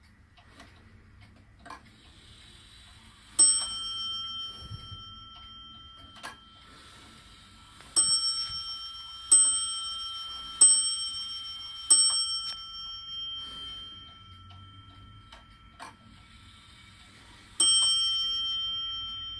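Warmink Sallander wall clock's bell strike: one stroke a few seconds in, then four strokes about a second and a half apart, and a single stroke again near the end, each ringing on and dying away. Faint clicks of the movement come between the strokes.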